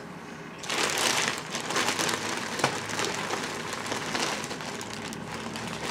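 Plastic bag rustling and crinkling as items are rummaged out of it, starting about half a second in, with one sharp click partway through.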